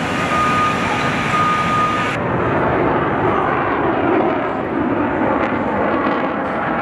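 A backing alarm beeps twice, about one beep a second, over a steady engine din. Then the sound changes abruptly to steady aircraft engine noise with no beeps.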